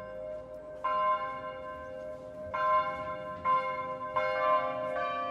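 Slow bell chimes: four struck notes a second or so apart, each ringing on, the notes changing pitch like a slow melody.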